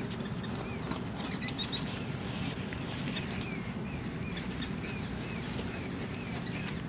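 Small birds chirping repeatedly in short, quick notes over a steady low background noise.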